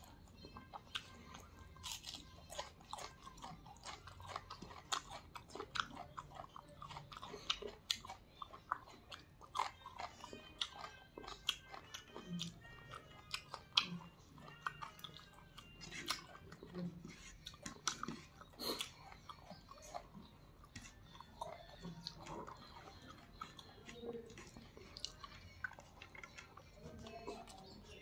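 Close-up eating by hand: chewing rice and chicken curry with wet mouth clicks and lip smacks, some crunching, and fingers mixing rice on the plate, in many irregular short sounds.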